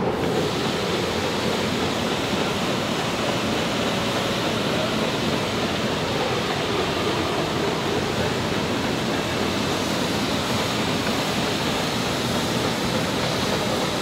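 Agrose Mistblower 1000 L trailed orchard airblast sprayer with its 75 cm fan blowing spray mist: a steady, loud rush of air and spray.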